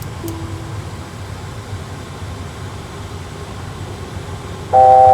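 Steady cockpit background noise of an Airbus A320 flight simulator, with a short faint low tone just after the start. Near the end a loud chord of three held notes begins: the A320's C-chord altitude alert.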